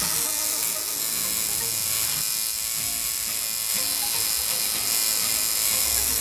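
Tattoo machine buzzing steadily.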